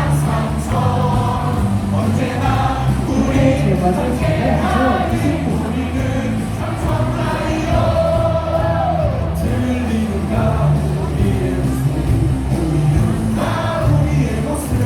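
A baseball stadium crowd singing a team cheer song together over loud amplified music with a steady beat.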